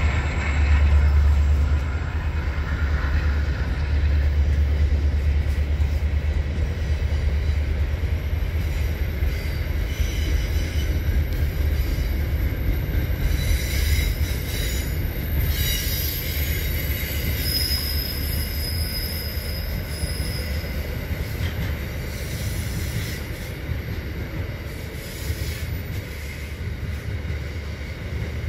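Diesel-hauled freight train passing: a deep engine rumble from the locomotives, loudest in the first couple of seconds, then container wagons rolling by with steady wheel-on-rail noise and thin high wheel squeals in the middle, slowly getting quieter.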